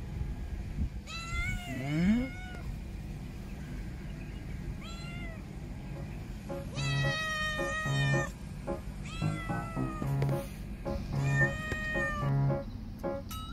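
Domestic cat meowing several times in arching calls, over background music that brings in a steady beat about halfway through.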